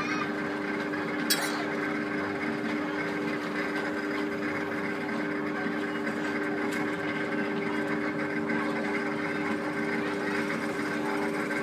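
Suspended ride car running along its overhead steel rail: a steady mechanical whir with a steady hum, and a single click about a second in.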